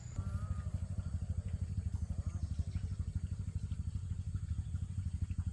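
Small motorcycle engine running steadily, a rapid, even low putter.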